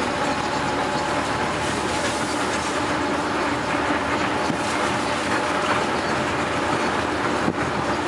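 Steady engine and road noise heard inside the cabin of a small shuttle minibus on the move.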